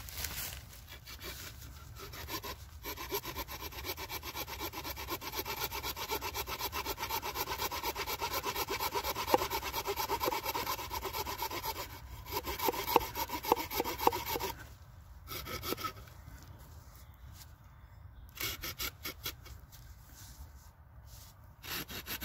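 The small folding saw blade of a Swiss Army knife cutting through a hazel stick in quick, steady back-and-forth strokes, changing after about 14 seconds to slower, scattered strokes as the cut nears its end.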